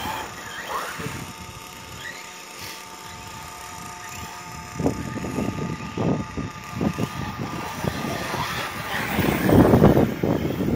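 Radio-controlled model car driving over packed snow and ice: a faint steady motor whine, with knocks and scrapes as it bumps along, then a louder burst of crunching near the end.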